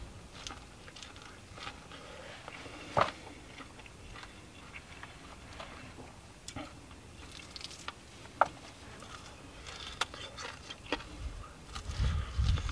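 A person biting and chewing corn on the cob: a scattering of small crunches and clicks. Near the end, wind rumbles on the microphone.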